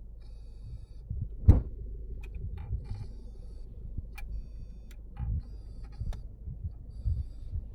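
Car navigation unit making an unusual, weird sound as it errors on boot: irregular clicks and pops over a low hum, with a thin high tone cutting in and out. A loud thump about a second and a half in.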